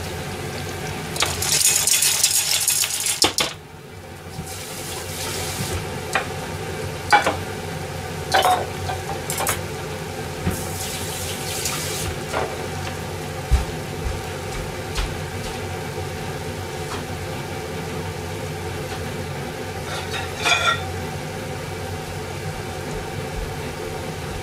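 Clams steaming in white wine in a stainless pot on a gas burner. There is a loud sizzling hiss for about two seconds near the start that cuts off abruptly. Fainter hisses follow twice, along with a steady background and scattered sharp clinks of shells and metal against the pot.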